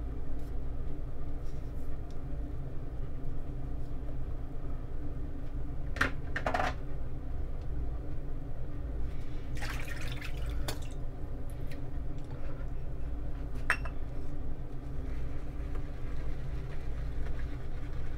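Boar-bristle shaving brush being loaded on a puck of shaving soap: a few short wet swishes, with a longer one about ten seconds in, over a steady low hum.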